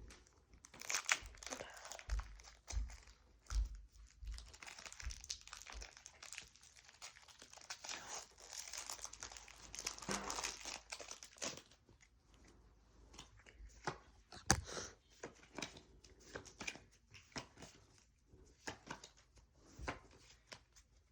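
Foil Pokémon card booster pack wrappers crinkling and tearing as they are opened and handled, then quieter handling with scattered small clicks and taps.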